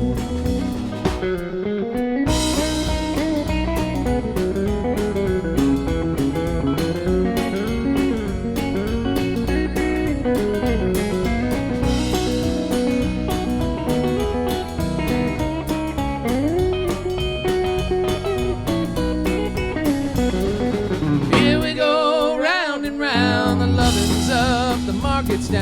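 Instrumental break of a country-blues band song: a guitar plays a lead line with bending notes over a steady drum-kit beat. Singing comes back in near the end.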